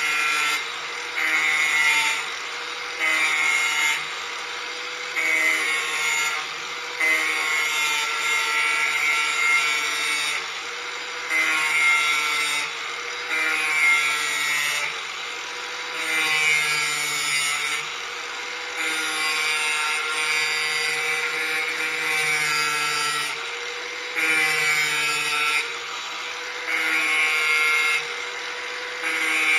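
Corded electric angle grinder running steadily while its disc is pushed along the edge of a steel lawn mower blade to sharpen it. About a dozen grinding passes, most a second or two long and a couple several seconds long, each louder and harsher than the steady motor whine between them.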